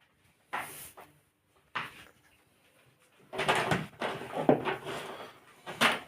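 Household handling noises: a couple of short knocks, then from about halfway through a stretch of irregular clattering and rustling, like things being moved about and a cupboard or drawer being worked.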